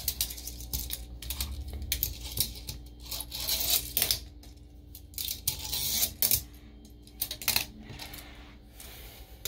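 Fingerboard clattering on a porcelain sink basin: irregular hard clicks and clacks as the small board's deck and wheels hit and land on the ceramic, with short quiet gaps between.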